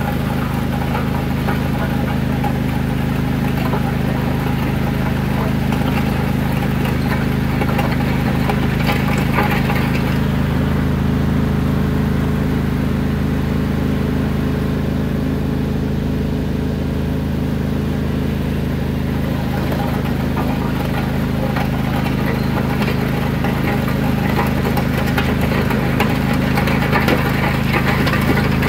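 Riding lawn mower engine running steadily at a constant speed.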